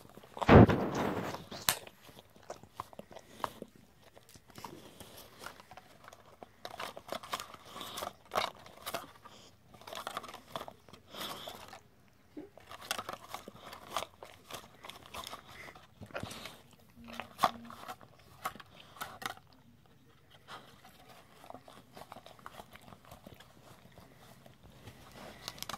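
A dog licking out a plastic pudding cup held under its paw: irregular wet licks, with its tongue and teeth clicking and scraping against the plastic. A loud knock about half a second in; the sounds thin out and grow quieter in the last few seconds.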